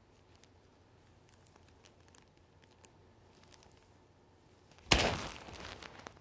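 A blue Somali cat nosing and bumping the camera up close: faint small ticks, then about five seconds in a sudden loud knock, followed by a second of rubbing and rustling as its face and fur brush over the microphone.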